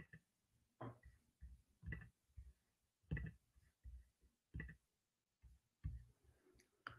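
Faint, irregular clicking and tapping of a computer keyboard and mouse, about a dozen soft strokes spaced unevenly.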